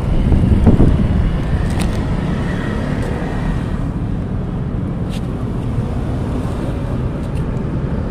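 Wind buffeting the microphone over a steady low rumble of street traffic, a little stronger in the first second.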